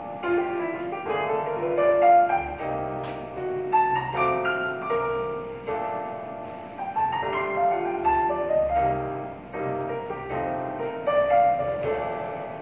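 Piano music played back through a pair of GroundZero GZPF40SQ 40 mm full-range car speakers, a run of melodic notes that ring and fade.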